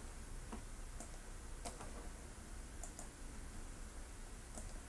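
Faint, sparse clicks of a computer mouse, about five of them at irregular intervals, over a low steady room background.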